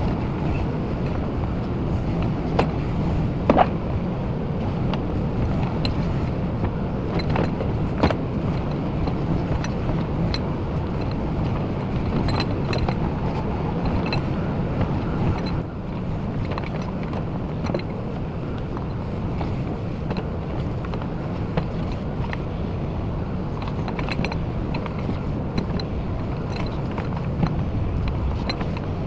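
JCB 4CX backhoe loader's diesel engine running steadily while digging, with a few sharp metallic clanks from the bucket and arm.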